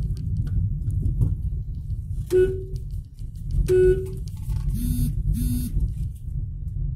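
Low rumble of a car moving through slow town traffic, heard from inside the cabin. Two short vehicle-horn beeps come a little over a second apart near the middle, followed by two quicker, lower-pitched horn beeps.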